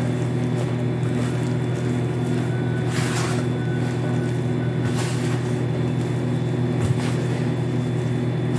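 Steady low machine hum, holding the same few low tones without a break, with faint soft swishes about three and five seconds in from hands working flour dough in a plastic bowl.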